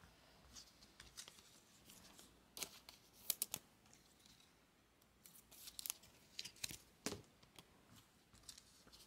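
Stiff chrome trading cards being flipped and slid against each other by hand: faint, scattered clicks and snaps, a few of them in quick succession.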